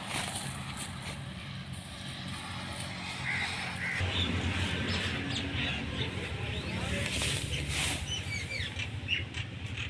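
Birds chirping in short rising and falling calls, starting about three seconds in, over a steady low hum.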